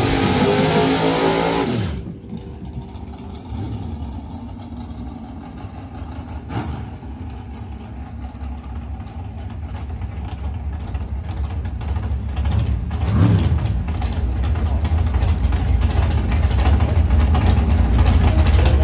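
Drag-race roadster's engine running at the starting line after its burnout, with a quick rev and drop a little past halfway, then growing steadily louder toward the end.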